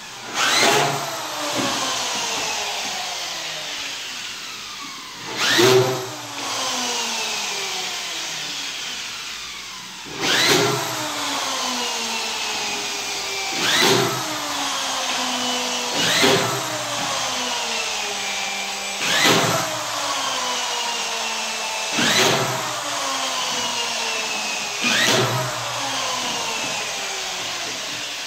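Corded drywall screw gun driving screws into a plasterboard ceiling: eight times a short, loud burst as a screw goes in, each followed by the motor's whine falling in pitch as it winds down.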